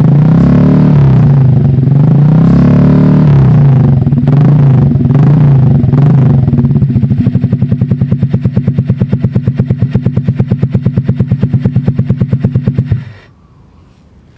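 Honda Click scooter's single-cylinder engine running through an SC Project exhaust with no silencer insert. It is revved up and down several times, settles to a steady, evenly pulsing idle, and stops abruptly near the end.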